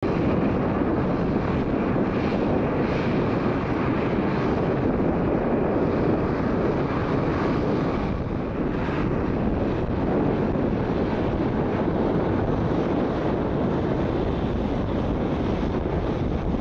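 Jet airliner, a Boeing 737-800, taxiing with its engines running low, a steady rushing noise mixed with wind buffeting the microphone.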